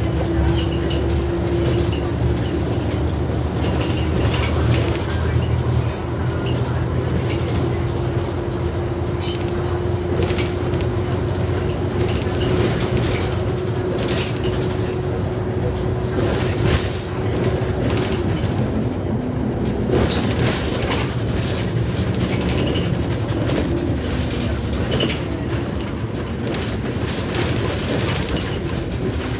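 Bus in motion heard from inside: a steady low engine drone with a thin whine that climbs slowly and drops away about two-thirds of the way through, over frequent rattles and knocks.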